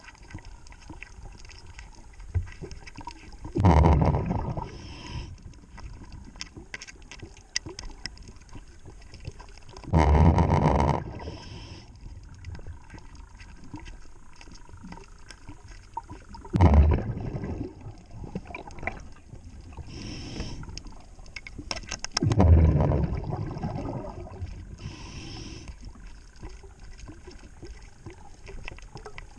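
Scuba diver's exhaled bubbles rushing from the regulator about every six seconds, heard underwater, with faint hiss and small clicks between breaths.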